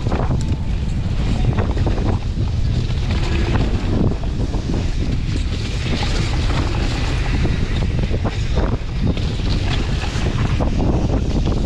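Wind buffeting the microphone as a mountain bike descends a dirt trail, with scattered knocks and rattles from the bike over rough ground.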